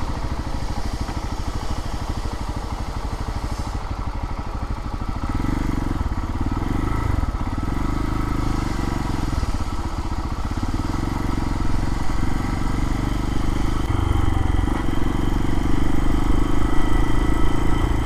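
Lifan KPX250's single-cylinder four-stroke engine running under way as the motorcycle is ridden, a steady engine note with a heavy low rumble that grows fuller about five seconds in and gets slightly louder toward the end.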